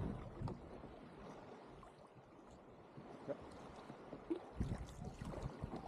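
Faint lapping and small splashes of water around a sea kayak. It is almost silent for a couple of seconds, and the small irregular splashes pick up again about three seconds in.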